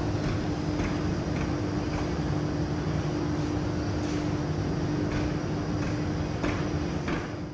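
Steady scraping rumble of a snowboard sliding over the snow of an indoor ski slope, with a steady low hum underneath.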